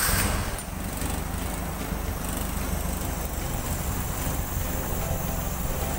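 Toyota 5K carburetted four-cylinder petrol engine running just after starting, a steady fast even pulsing that eases slightly from its first moment into a settled idle about half a second in.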